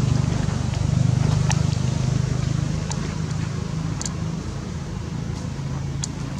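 A steady low engine hum that swells about a second in and then slowly fades, with a few short high clicks over it.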